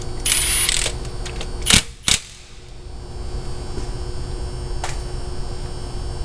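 Cordless power ratchet whirring in one short burst as it backs out the 16 mm oil drain plug, followed about a second later by two sharp knocks.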